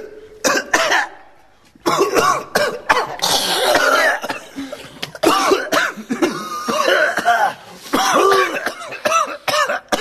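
Several people coughing and clearing their throats in a mock 'coughing orchestra', hacking coughs at different pitches overlapping one another. They start up again after a brief lull about two seconds in and keep going almost without a break.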